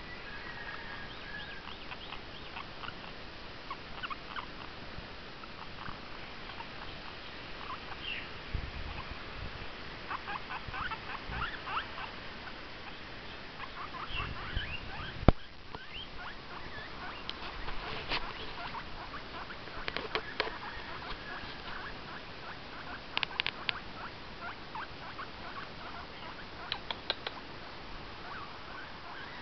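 Guinea pig squeaking in short, high repeated calls that come in clusters, with a sharp click about halfway through.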